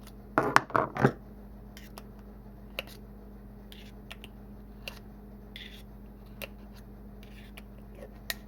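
Small clicks, scrapes and rattles of the e-hookah's parts being handled and pried apart by hand, loudest in a short cluster about a second in, then scattered single clicks.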